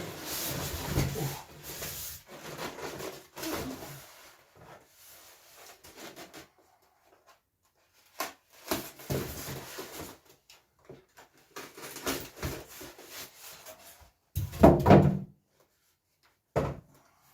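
Items and packaging being handled: rustling and scattered knocks, with a loud thump from something being set down about 15 seconds in.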